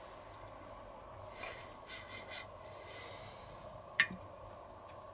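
Quiet handling of a small vanilla-extract bottle over a Thermomix's stainless steel mixing bowl: a few faint rustles, then one sharp click about four seconds in as the bottle taps the bowl.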